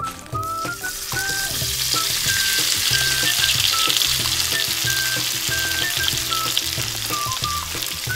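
Breaded chicken balls deep-frying in hot oil in a miniature steel wok: a steady sizzle that swells about a second in as the pieces go into the oil.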